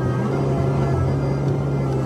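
Komatsu PC128 excavator's diesel engine and hydraulics running steadily as the arm and bucket move, heard from inside the cab as a constant low hum with a few steady higher tones over it.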